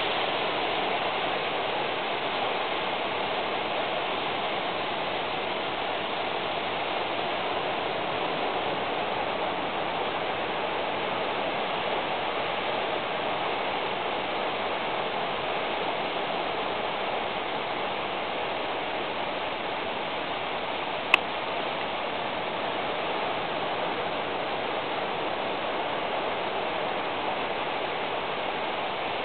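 Steady, even hissing noise with no change in level, and a single sharp click about two-thirds of the way through.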